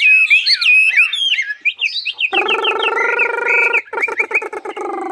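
Caged Chinese hwamei singing: a loud, rapid run of varied whistled notes and trills, going on as quicker, shorter notes. About two seconds in, a steady lower droning tone with overtones joins underneath, breaking off briefly near four seconds.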